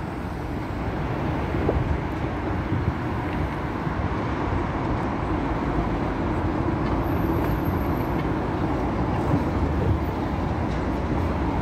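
Steady rumble of road traffic on a road-and-rail bridge, mixed with a metro train approaching along the bridge's rail deck.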